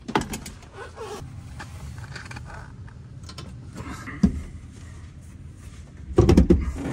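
Handling noises as a truck's engine cover is set in place and a seat is lowered onto its quick-release mount: scattered knocks and clicks, a sharp click about four seconds in, and a burst of loud clunks near the end as the seat goes in.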